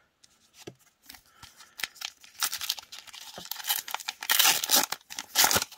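Foil wrapper of a Magic: The Gathering booster pack crinkling and tearing open. A few light clicks at first, then crackling tearing that grows louder over the last three seconds.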